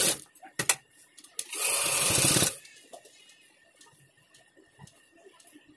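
Sewing machine stitching in short runs: one run stops just as it begins, a couple of sharp clicks follow, then a second run of about a second, and after it only faint ticks and rustles of the fabric being handled.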